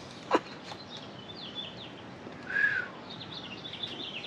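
Birds chirping in quick runs of short notes. A sharp click comes about a third of a second in, and a short, louder note a little past halfway.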